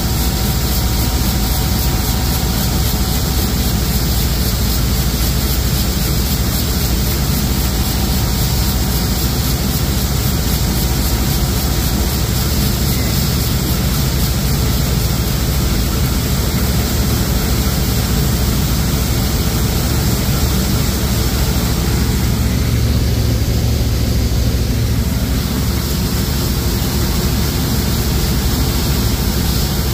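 John Deere 6620 Titan II combine running steadily while shelling corn, a constant drone of engine and threshing machinery. A deeper hum swells for a few seconds in the second half.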